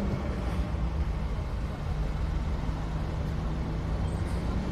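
Steady low rumble of a moving car heard from inside the cabin, with a faint steady hum over it.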